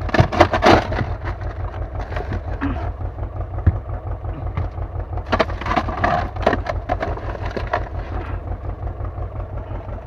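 Boat engine idling steadily, with crunching and rattling of crushed ice and fish as a plastic scoop digs through an ice-packed fish tub, in two bouts: in the first second and again from about five to eight seconds in.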